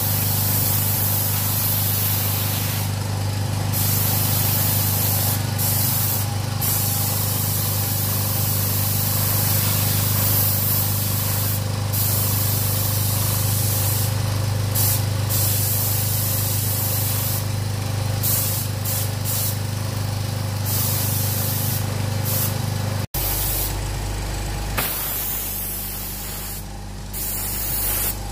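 Paint spray gun spraying black paint onto a car's wiper cowl panel: a steady hiss of spray over a steady low hum. About 23 s in it cuts off suddenly, and a quieter hum and hiss go on.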